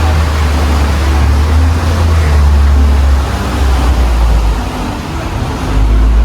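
Tour boat's motor running under way, a low drone that drops in pitch about three seconds in and rises again near the end, over the rush of wind and water.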